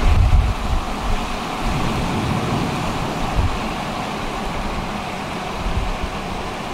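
Road noise from a car driving along, a steady hiss with an uneven low rumble of wind buffeting underneath.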